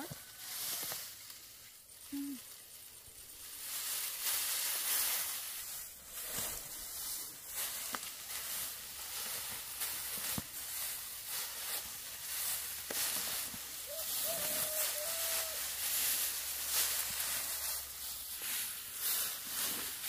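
Dry rice straw rustling and crackling as harvested stalks are gathered up by hand, in irregular swells.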